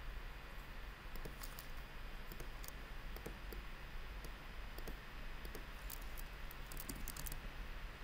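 Light clicks of a computer mouse and keyboard, scattered and in short quick runs about a second and a half in, near three seconds, and again around six to seven seconds, over a faint steady low hum.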